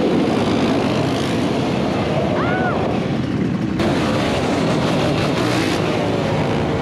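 Off-road motorcycle and ATV quad engines running and revving in a group. The sound changes abruptly about four seconds in.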